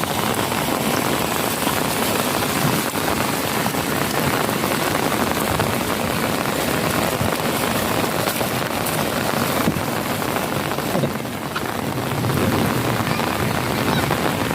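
Steady rainfall, an even hiss of rain on surfaces, easing slightly for a moment about eleven seconds in.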